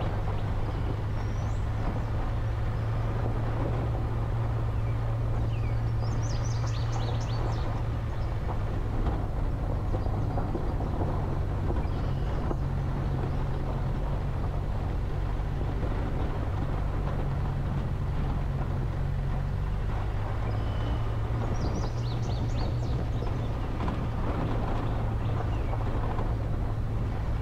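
Vehicle engine running at a steady low hum while the tyres crunch over a loose gravel track.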